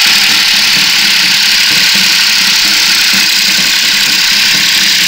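Ursus 3512 tractor's three-cylinder diesel engine running steadily while pulling a disc harrow through stubble, with a loud steady hiss over it.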